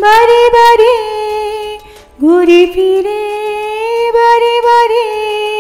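A woman singing a Bengali Eid ghazal, holding two long sustained notes. There is a short break about two seconds in, and the second note slides up before it is held.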